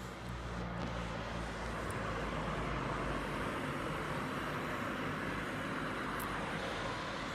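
Heavy rain falling steadily, an even hiss that swells slightly about half a second in.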